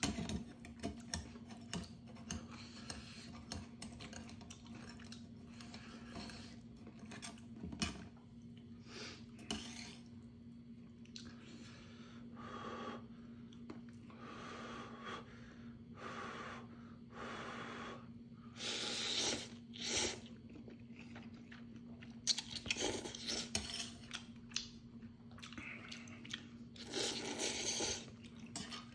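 A person eating thick Neoguri instant noodles: repeated slurps and chewing, with a few longer slurps in the second half and metal chopsticks clicking against a stainless-steel bowl. A steady hum runs underneath.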